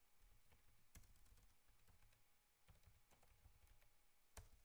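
Faint typing on a computer keyboard: a run of key clicks, with one louder keystroke near the end.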